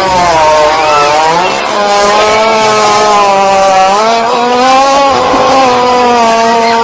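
A long, drawn-out comedic fart sound effect: one unbroken buzzing tone whose pitch wavers slowly up and down, rising a little about four seconds in.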